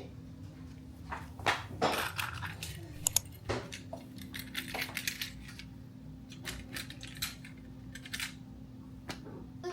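Irregular clicks, clinks and knocks of small hard objects being handled, a few with a short metallic ring, over a steady low hum.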